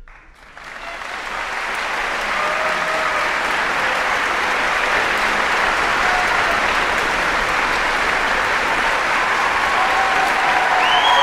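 Concert-hall audience applauding at the end of an orchestral piece: the clapping swells over the first two seconds, then holds steady, with a few calls and a high whistle rising out of it near the end.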